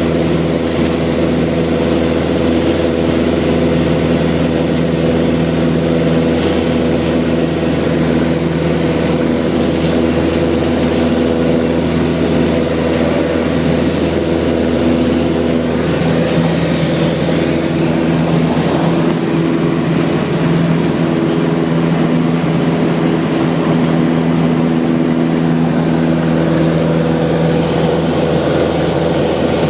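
Beechcraft light aircraft's piston engine and propeller running steadily as a constant drone with several even tones, heard from inside the cabin.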